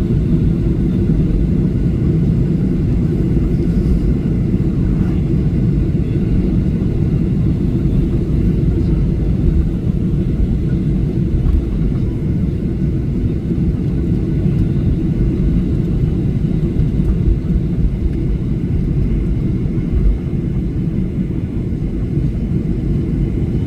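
Airliner cabin noise: the engines and airflow heard from inside the passenger cabin as a steady low rumble.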